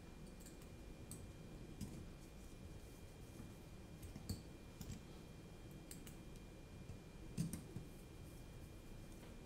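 Scattered light clicks and taps of carbon-fibre drone frame parts and small screws being handled and set down on a work mat, with two sharper knocks about four and seven seconds in.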